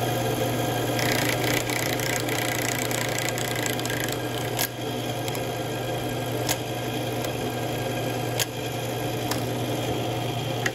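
Drill press running steadily while power tapping a hole in steel plate, a constant motor hum with a few sharp clicks every couple of seconds.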